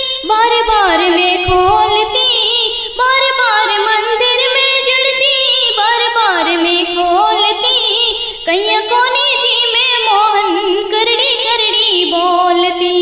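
Instrumental interlude of a Rajasthani devotional song: a melody with wavering, sliding pitch plays on without vocals.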